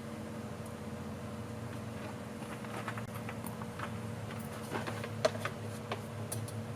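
Scattered light clicks and taps of small carburetor parts being handled and worked on, over a steady low hum.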